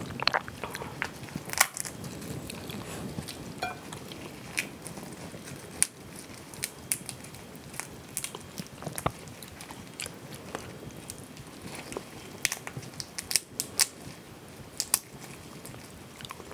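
Shells of small sauce-coated mala crayfish cracking and snapping as they are pulled apart by gloved hands, in irregular sharp clicks.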